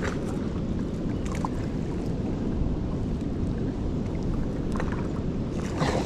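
Steady low rumble of wind and water noise around a fishing kayak, with a few faint light clicks.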